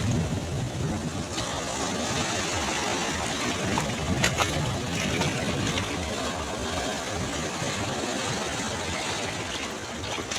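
Sea waves washing on a beach: a steady rushing surf noise, with a few faint clicks about four seconds in.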